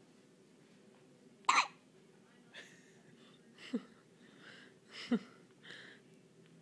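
Three small hiccups about one and a half seconds apart, the first the loudest, with soft breaths between them.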